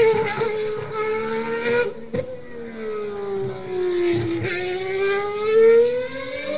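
A car engine running at high revs, its pitch falling slowly for about four seconds and then climbing again as it speeds up, with a short click about two seconds in.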